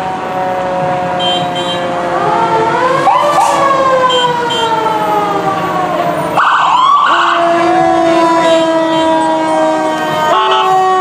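Several emergency-vehicle sirens wailing at once, their pitches overlapping. A siren swoops up about two seconds in and again just after six seconds, each time falling away slowly.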